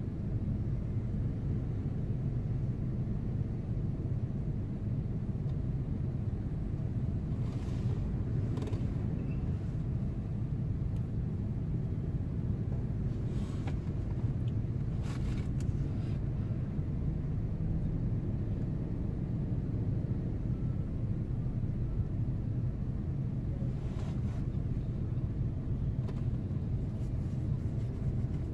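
Idling engines of motorcycles and other traffic waiting at a red light: a steady low rumble, with a few brief sharper sounds about 8, 15 and 24 seconds in.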